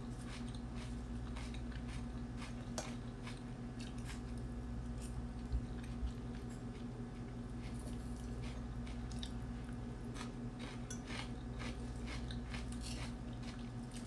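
Close-up chewing and crunching of crisp lettuce salad, with scattered short clicks of a metal fork against the plate, over a steady low hum.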